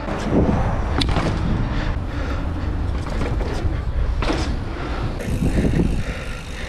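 Wind rumbling on the microphone of a camera carried on a moving mountain bike, with a few sharp knocks and rattles from the bike over rough ground.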